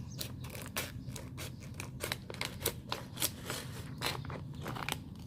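Scissors snipping through a clear plastic folder sheet: a quick, uneven run of sharp cuts.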